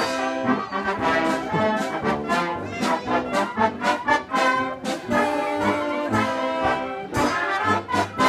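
Concert band playing live, with brass such as trombones and trumpets to the fore, holding and changing full chords over sharp percussive accents.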